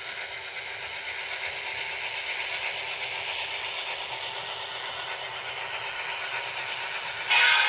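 HO scale model diesel locomotive running along the track toward and past the microphone, a steady whirring rattle of its motor and wheels on the rails that grows a little louder. Near the end it turns abruptly louder.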